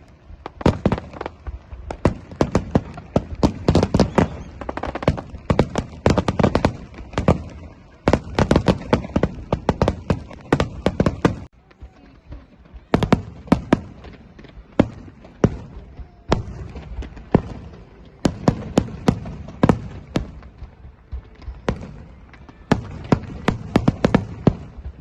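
Fireworks going off in rapid, irregular volleys of sharp bangs, with a short lull a little before halfway.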